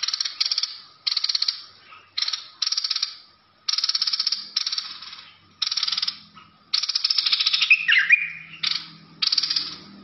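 A caged bulbul (merbah lekir) giving a harsh, rapid rattling chatter in repeated bursts, each about half a second to a second long, close after one another. A brief squeaky note that glides up and down comes about eight seconds in.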